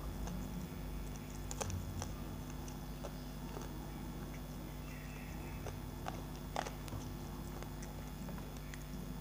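Someone eating rice by hand from a steel plate: soft chewing and fingers working the rice, with a few sharp clicks against the plate. A steady low hum runs underneath.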